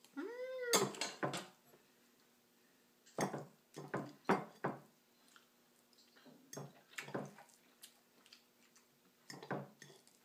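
Metal spatula and fork clinking and scraping on a plate while cutting up a slice of pizza: a series of short sharp clicks in small clusters throughout.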